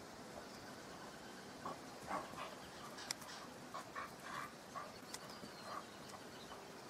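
Young Australian Kelpies play-fighting, giving a string of short yaps over a few seconds, with a couple of sharp clicks among them.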